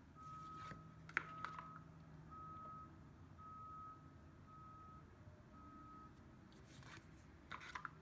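Faint electronic beeping at one steady pitch, about once a second, like a vehicle's reversing alarm, stopping about six seconds in. A few light clicks and taps come through it, the loudest just over a second in and a cluster near the end.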